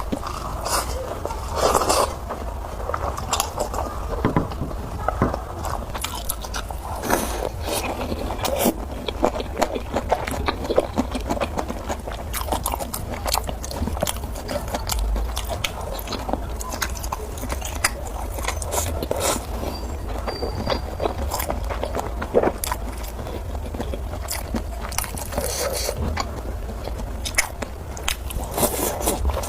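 Close-miked chewing and biting of spicy noodles: a continuous run of irregular sharp, wet mouth clicks and bites.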